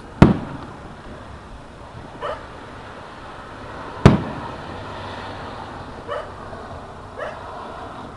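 Aerial firework shells bursting: two loud, sharp bangs about four seconds apart, each trailing off into an echo. Three shorter, fainter sounds fall between the bangs.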